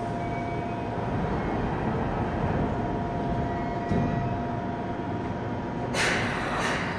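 Yokohama Blue Line 3000A subway train standing at an underground platform with a steady machinery hum. About six seconds in there is a short hiss of air, the brakes releasing just before the train pulls away.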